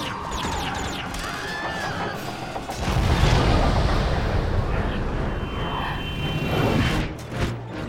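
Cinematic sound effects over music: sci-fi ray-gun zaps with sliding, falling tones and crackling hits in the first two seconds. About three seconds in comes a big explosion boom with a deep rumble that carries on for several seconds.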